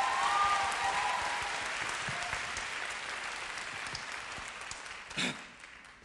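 Audience applauding, fading away gradually over several seconds, with a few voices calling out in the first second.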